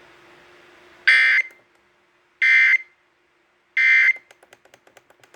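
Emergency Alert System end-of-message data tones: three identical short bursts of buzzing digital data, each under half a second and about 1.3 s apart, marking the end of the alert. Faint rapid ticking follows the last burst.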